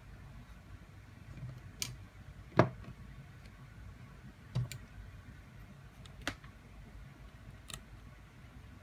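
Irregular sharp clicks and taps of tools and small parts being handled during disassembly, about five in all, the loudest a little over two and a half seconds in.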